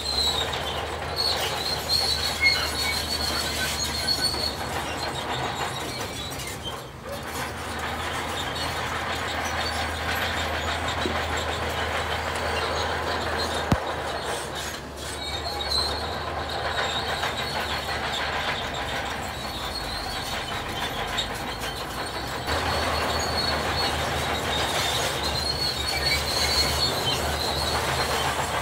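Heavy construction machinery working, diesel engines running steadily, with a high-pitched squeal that comes and goes several times.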